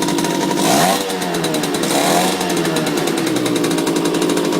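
Vintage Yamaha SS50 buzz bike's small two-stroke engine running, blipped up in revs twice, once about a second in and again about two seconds in, then settling back to a steady run.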